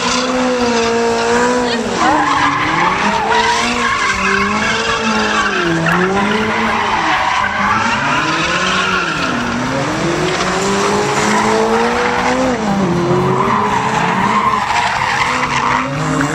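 A car's engine revving up and down over and over, its pitch rising and falling every two to three seconds, as it spins donuts, over a steady hiss of the rear tyres skidding and burning out on the pavement.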